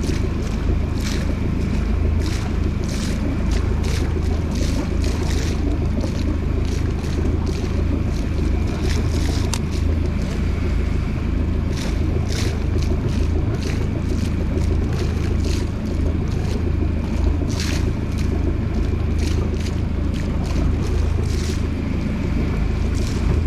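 Boat engine running steadily as a constant low drone, with irregular splashes of water against the hull and wind on the microphone.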